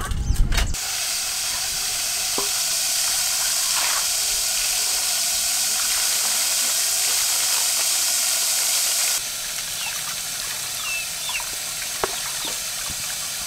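Tap water pouring in a steady rush onto a whole duck in a metal bowl. About nine seconds in the rush drops to a quieter level, leaving splashing and rubbing as hands scrub the duck in the water.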